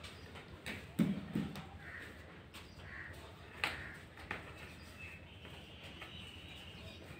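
A handful of light, sharp knocks on hard floor tile, the loudest about a second in. Faint bird chirps sound in the background.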